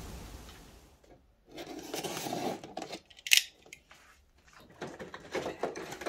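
Wind noise fading out in the first second. Then a cardboard ornament box with a plastic lid is handled and set down: irregular rustling and scraping of cardboard and plastic, with one sharp click about halfway through.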